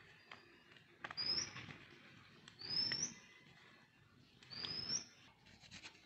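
A bird calling three times, each a short, high, rising whistle, about two seconds apart, with soft cutting sounds alongside.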